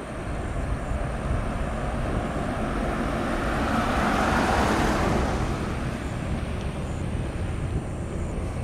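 Jet airliner engines: a broad, even rush of noise that swells to its loudest about halfway through and then slowly fades, over a steady low rumble, as an aircraft passes.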